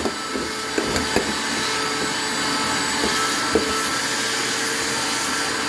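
Shop vac running steadily, with a few short knocks about a second in and again about three and a half seconds in.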